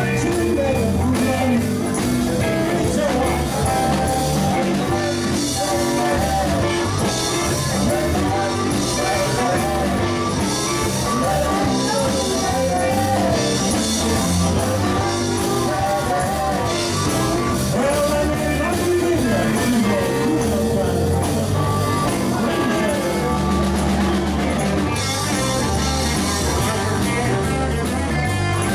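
A band playing a rock-and-roll song with guitar.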